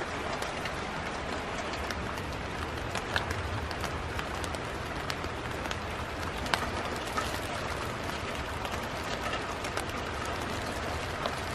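Steady hiss of rain with many scattered sharp ticks, and the crinkle of a black plastic bag being handled.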